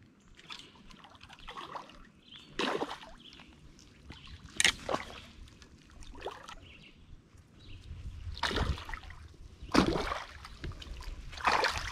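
A hooked bowfin splashing and thrashing in shallow creek water as it is fought on a fly rod: about six sharp splashes, a second or two apart.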